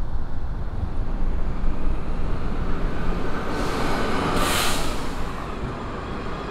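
City street traffic rumbling steadily, with a short hiss of a bus's air brakes about four seconds in.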